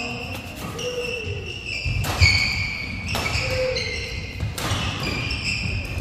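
Badminton doubles rally on a court floor: three sharp racket hits on the shuttlecock about two, three and four and a half seconds in, with sports-shoe squeaks and thudding footsteps as the players move.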